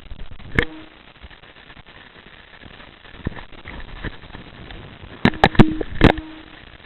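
Sharp knocks on something hard: one just over half a second in, then four in quick succession about five seconds in, each leaving a short low ring, over a faint hiss.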